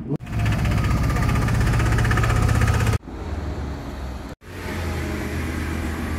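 Car engines running at low revs in a string of clips with abrupt cuts. A loud, steady engine drone lasts nearly three seconds. It is followed by a Lamborghini Gallardo's V10 running steadily at low revs, which cuts out briefly near the middle and comes back.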